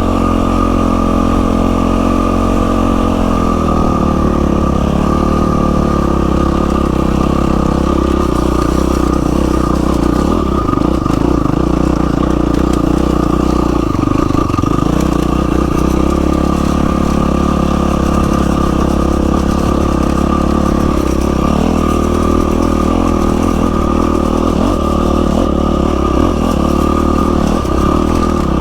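Yamaha WR450F single-cylinder four-stroke dirt bike engine running under way, its pitch rising and falling with changes of throttle.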